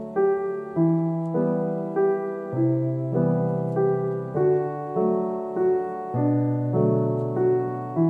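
Background piano music, a gentle melody with a new note struck about every half second, each one fading before the next.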